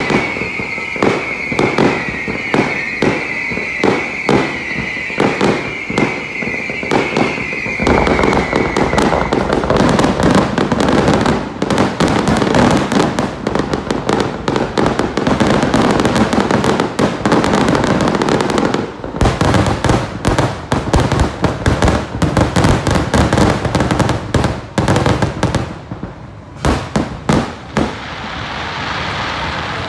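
Fireworks display: aerial shells bursting in rapid volleys of bangs and crackles, with a brief pause about two-thirds of the way through. Over the first several seconds a steady high whistle-like tone runs under evenly spaced bangs.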